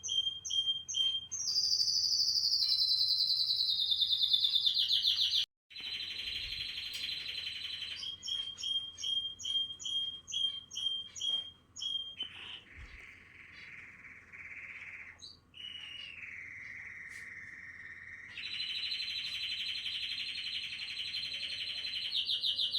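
Canary singing: runs of short repeated chirps alternating with long rapid trills, one of them gliding down in pitch. The song breaks off abruptly for a moment about five and a half seconds in.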